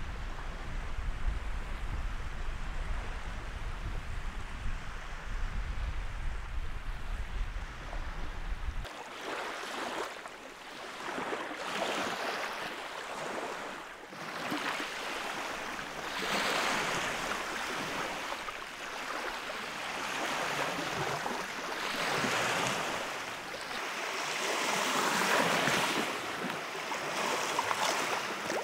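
Lake Baikal waves washing onto the shore in swells every two to three seconds. For the first nine seconds or so, wind buffets the microphone with a low rumble that cuts off suddenly.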